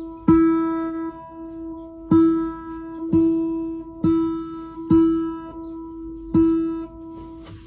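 Music: a stringed instrument strummed six times, each chord left to ring, with about a second between strums.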